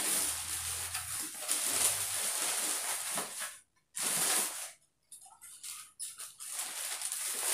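Thin plastic carrier bags rustling and crinkling as food boxes are packed into them, with two short pauses in the middle.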